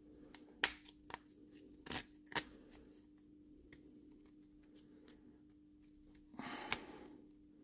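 Snowboard binding strap and its plastic buckle being handled and tried out: a few sharp separate clicks in the first two and a half seconds, then a short rustle with a click near the end.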